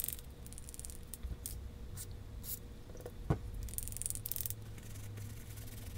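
Faint clicks and scratchy ticks of a small part of a Lew's Mach Crush spinning reel being worked back and forth by hand, loosening a stiff joint with a little rust in it after a spray of Corrosion X. One sharper click comes about halfway through.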